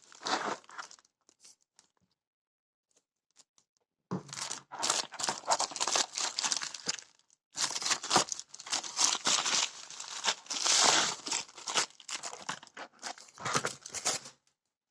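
Packaging being crinkled and torn open by hand. A short rustle, about three seconds of quiet, then dense crackling and tearing for most of the rest, with a brief pause about halfway.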